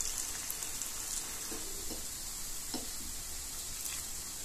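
Ghee sizzling steadily around banana-rava paniyaram balls frying in a paniyaram pan, a soft even hiss with a few faint light ticks.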